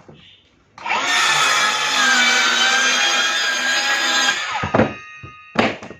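Milwaukee M18 Fuel cordless circular saw spinning up about a second in, running loud through a cut for about three and a half seconds, then winding down. Two knocks follow near the end.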